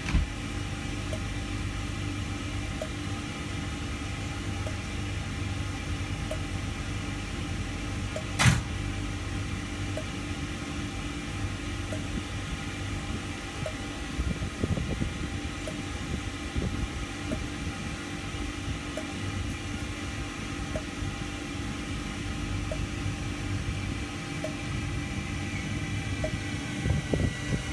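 Diesel train standing at the platform with its engine idling: a steady hum. A single sharp knock about eight seconds in.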